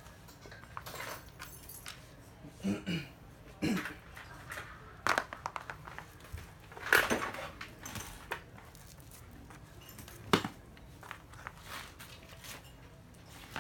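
Intermittent knocks, clicks and rattles of a cordless drill and its parts being handled, with no motor running; the loudest clatter comes about seven seconds in and a sharp knock about ten seconds in.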